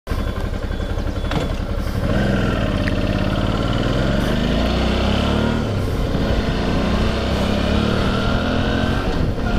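Motorcycle engine running under way. Its note rises in pitch twice as the bike accelerates, with a brief dip a little past halfway.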